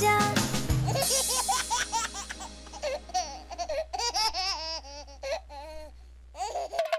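A tune ends about a second in, and then a baby giggles and laughs in many short, repeated peals.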